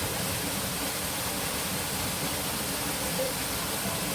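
Steady rushing noise of falling water, even and unbroken.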